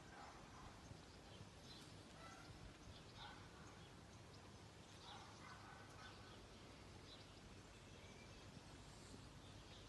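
Near silence: faint outdoor background hiss with scattered faint bird chirps.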